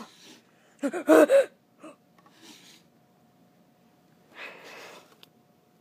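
A high voice gives a short wordless cry in two quick bursts about a second in, like a gasp. A faint soft hiss follows near the end.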